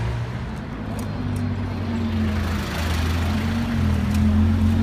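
Low, steady engine rumble of cars creeping along at low revs. It grows louder about four seconds in as an Audi R8 Spyder rolls slowly past.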